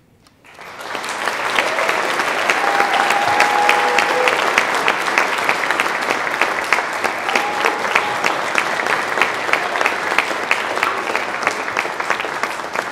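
Audience applause that breaks out about half a second in, swells within a second and then holds steady.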